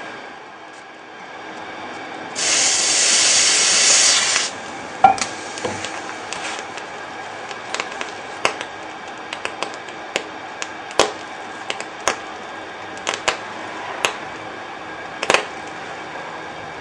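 Water on a hot electric hotplate: a loud sizzling hiss starting about two seconds in and lasting about two seconds, then the Leidenfrost drops crackle and pop in sharp, irregular ticks over a steady faint hiss.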